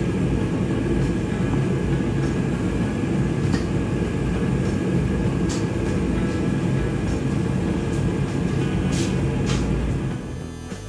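Forge burner running while the forge heats up: a steady, deep rushing noise, with a few faint clicks over it. The noise drops away near the end.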